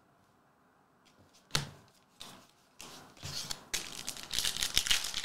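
A sealed trading-card pack being torn open, its wrapper crinkling, starting about three seconds in after a couple of light taps of cards.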